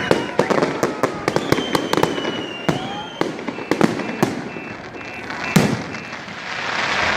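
Fireworks salute going off: a rapid, irregular series of sharp bangs and crackles, with whistling tones among them in the first few seconds.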